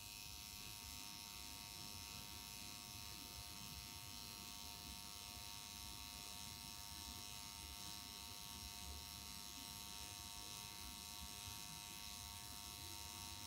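Pen-style permanent makeup machine buzzing faintly and steadily while its needle tattoos pigment into the lower lash line as eyeliner.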